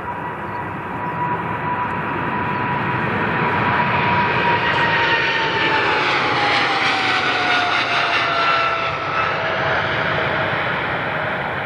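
Widebody jet airliner passing close by: steady engine noise swelling to its loudest midway, with a whine that drops steadily in pitch as the aircraft goes past.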